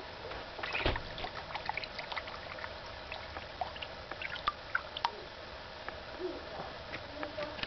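Faint scattered clicks, scrapes and small squeaks of a kitten's claws gripping an inflatable vinyl paddling-pool rim, with a short rustle about a second in.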